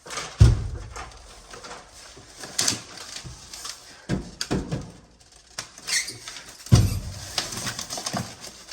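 Two heavy thumps, about half a second in and near seven seconds in, with scattered knocks and rustling between them as gear is handled.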